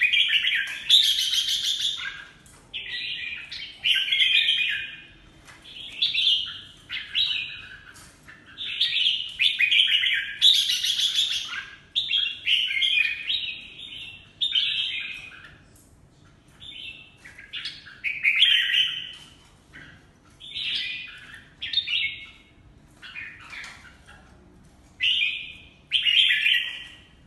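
Red-whiskered bulbul (jambul) singing: short, bright warbled phrases repeated every second or two with short pauses between, fainter for a few seconds about halfway through.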